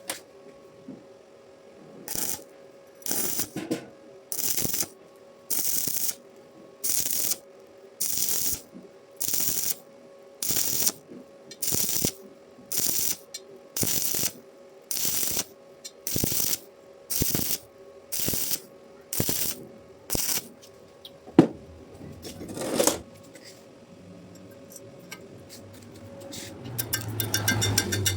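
Electric arc welding in short stitches: a run of brief hissing arc bursts, about one a second, each lasting around half a second. Near the end come a sharp click and a rising buzz.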